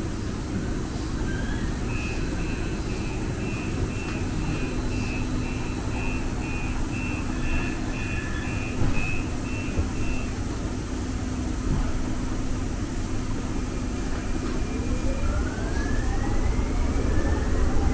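Inside a Muni Metro light-rail car: a steady low rumble and hum, with a run of about fifteen high electronic beeps, roughly two a second, in the first half. Near the end a rising whine from the traction motors as the train speeds up, getting louder.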